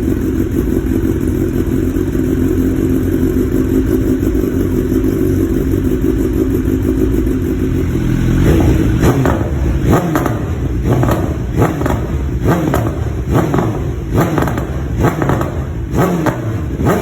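BMW S1000R inline-four engine idling steadily through an Akrapovič exhaust just after a cold start. About halfway through it is blipped repeatedly, each quick rev falling back with pops and crackles from the exhaust.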